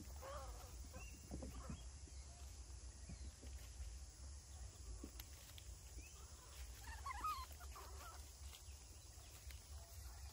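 Faint squeaky calls from a baby macaque, a few short bending squeaks just after the start and a louder cluster about seven seconds in, over a low steady rumble.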